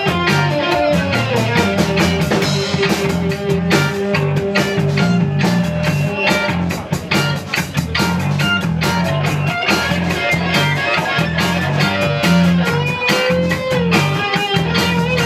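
Live rock band playing: electric guitars over bass guitar and drum kit, in a steady beat.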